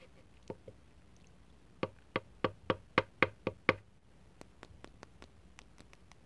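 A hard chocolate spoon being tapped for ASMR: two small knocks, then a quick run of about eight sharp knocks at roughly four a second, followed by lighter ticks.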